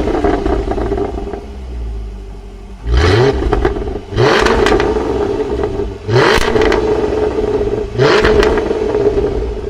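Jaguar F-Type R's supercharged 5.0-litre V8 and exhaust surging hard in revs about four times, each surge climbing quickly in pitch and then holding loud for a second or more, with quieter running in between.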